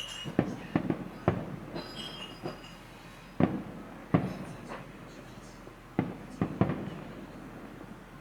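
Aerial firework shells bursting: about a dozen sharp booms at irregular intervals, some in quick pairs and triples, each dying away with a short echo.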